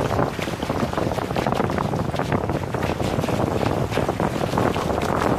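Wind buffeting the microphone over water rushing and splashing along the hulls of a Hobie Getaway catamaran under sail.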